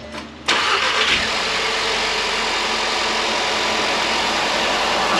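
VW Golf Sportwagen's turbocharged four-cylinder, just fitted with an IS20 turbo, catches suddenly about half a second in and runs steadily. It fired on fuel still left in the system even though the fuel pump fuse was pulled for oil-priming cranks.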